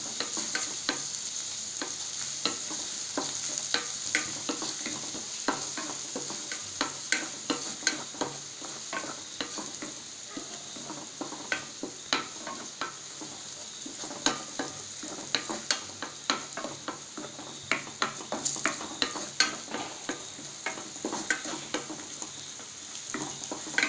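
Crushed garlic sizzling in hot oil in a stainless steel pan on a low flame, being sautéed toward light brown. A wooden spatula stirs it, scraping and tapping against the pan in frequent sharp clicks over a steady sizzle.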